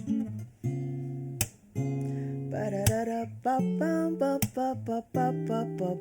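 Acoustic guitar strummed, with a sharp strum about every second and a half, under wordless scat singing.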